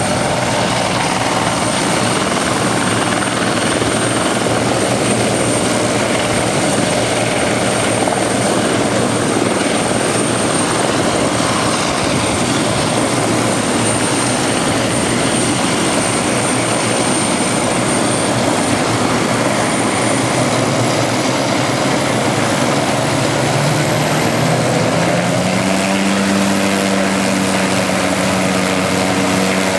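McDonnell Douglas MD 500E helicopter running on the ground, its Allison 250 turboshaft whining steadily over the rotor's chop. About two-thirds of the way through the turbine whine starts rising in steps, and near the end the rotor beat climbs in pitch and grows stronger as the machine spools up.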